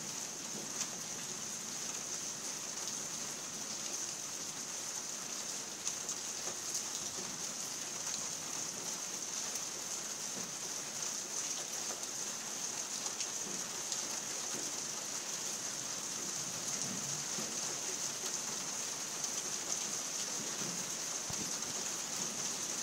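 Steady rain falling, with scattered ticks of drops striking a surface and a constant high-pitched hiss over it.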